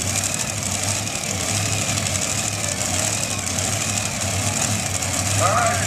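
Multi-engine modified pulling tractor idling at the starting line before its pull, a steady, unevenly pulsing engine rumble.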